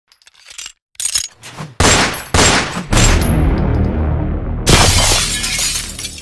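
Sound-effect gunshots striking and shattering glass: three sharp hits about half a second apart, then a long fading tail of breaking glass. Another loud burst of noise comes near the end.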